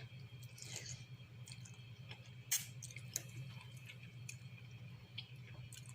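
Faint eating sounds: chewing with small wet mouth clicks and smacks, one sharper click about halfway through, over a low steady hum.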